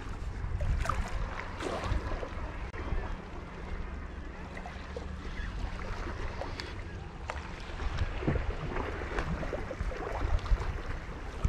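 Wind buffeting the microphone with a steady low rumble, while small waves lap and splash against the rocks with scattered short clicks and slaps.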